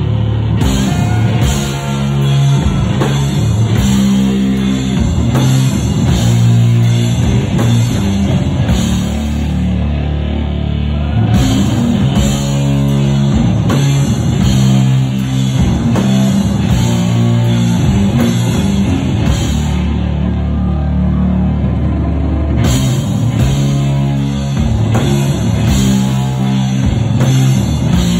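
Sludge metal band playing live through a loud PA: heavily distorted guitar and bass riffing over a drum kit, with no vocals. The cymbals drop out briefly twice, about a third of the way in and again about three quarters through.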